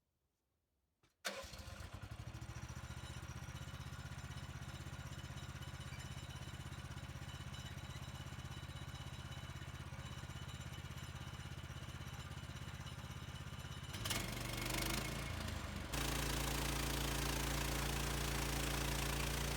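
Small gasoline engine of a portable sawmill starting about a second in and then idling steadily. Near the end it is throttled up and settles into a louder, steady run at higher speed, ready for cutting.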